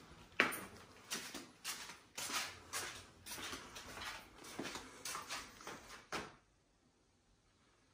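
Footsteps walking at an even pace, a little under two steps a second, stopping about six seconds in.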